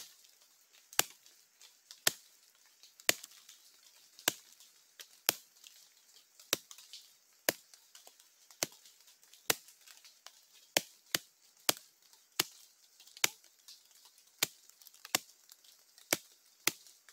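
Sharp knocks of a thin stick rapped on wood, about one a second and coming a little quicker in the second half. It is a hunter's batuque imitating the knocking of a collared peccary (catitu), to lure the animal in.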